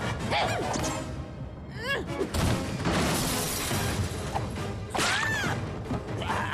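Cartoon soundtrack: background music with slapstick sound effects, including a long noisy crash-like rush that starts about two and a half seconds in, and short gliding yelps or whistles.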